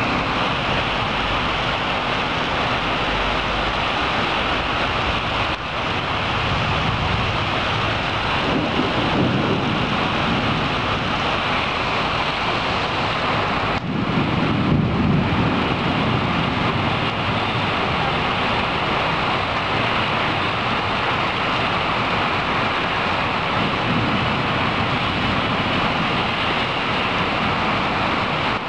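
Thunderstorm: steady hiss of heavy rain and wind, with low thunder rumbles swelling twice, about eight seconds in and again around fourteen seconds.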